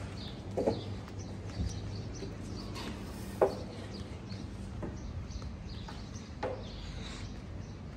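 Outdoor street ambience: a steady low hum with faint bird chirps and a few short knocks, the loudest about halfway through.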